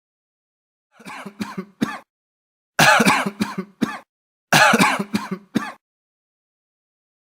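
A person clearing their throat in three separate goes: the first quieter, the last two loud, each a quick run of several short pulses.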